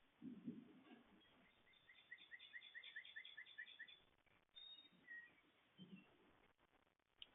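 Faint bird calling: a quick, evenly spaced run of about ten short chirps, about five a second, after a soft low rumble near the start.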